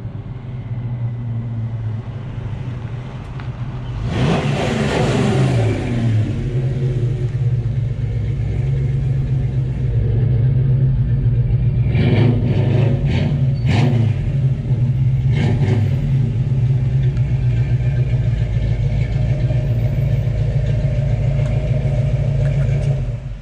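1966 Ford Mustang fastback's 347 stroker V8 running as the car drives, revved once about four seconds in with the pitch falling back, and several short sharp noises over the engine between about twelve and sixteen seconds in.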